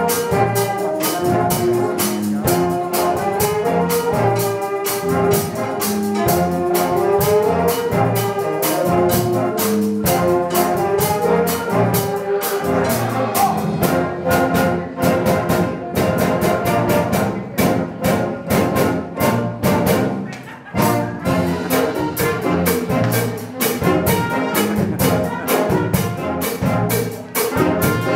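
Youth wind orchestra of flutes, clarinets and brass playing live, with a steady beat under the melody.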